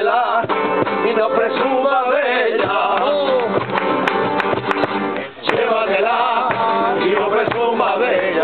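Men singing together to several acoustic guitars, a folk song; the music breaks off briefly a little past halfway, then the voices and guitars come back in.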